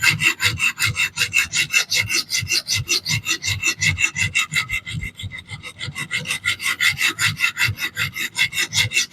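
Knife blade of DC53 steel ground back and forth on a coarse reprofiling stone in a fixed-angle sharpener, giving a fast, even rasping of about seven strokes a second. It is heavy-pressure reprofiling, the aggressive stone stripping steel to set a new edge angle.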